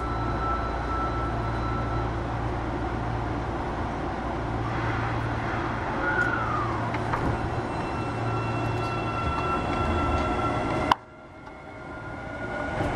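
Osaka Metro 25 series subway train running, heard from inside the car: a steady rumble of wheels and traction motors with a faint steady whine and a brief falling whine about six seconds in. About two seconds before the end the sound cuts off suddenly after a click, then builds again with rising motor tones.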